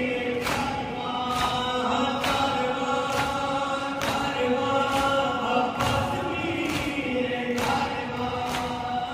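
Voices chanting a nauha, a Shia lament, over a PA, with the mourners' matam chest-beating striking in unison about once a second.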